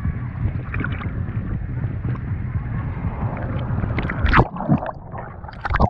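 Steady low rumble of a jet airliner passing overhead on its landing approach, with a couple of sharp knocks about four seconds in and near the end.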